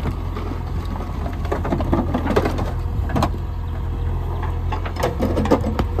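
JCB 3DX backhoe loader's four-cylinder diesel engine running steadily under digging load, with clattering of soil and stones in the bucket about two seconds in and again near the end as the bucket digs and dumps earth.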